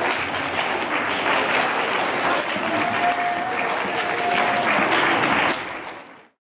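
Crowd applauding, dense steady clapping with a short held tone in the middle, fading out near the end.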